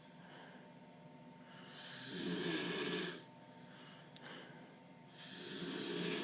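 A person snoring heavily, a loud rough snore about two seconds in and another starting near the end, with quieter breathing between.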